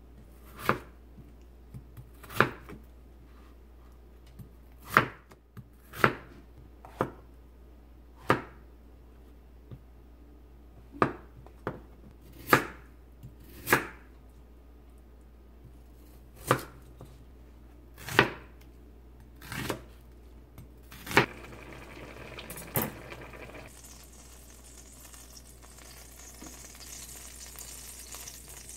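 Kitchen knife slicing potato and carrot on a plastic cutting board, in separate sharp strokes about one every second or two. In the last few seconds, butter sizzles steadily in a hot pan.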